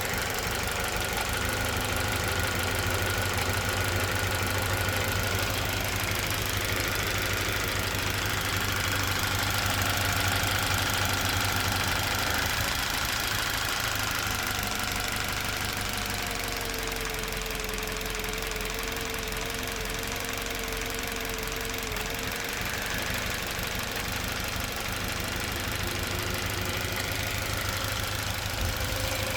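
Toyota Verso's 1.8-litre 2ZR-FAE Valvematic four-cylinder petrol engine running steadily, with a thin whine on top that drops in pitch for a few seconds past the middle. The owner reports that this engine shakes and occasionally misfires on cylinder 4, cause not found.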